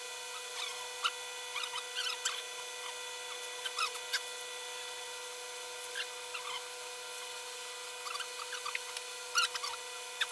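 Small scattered rustles and light clicks of banknotes being handled and counted, over a steady background hiss with a faint electrical whine.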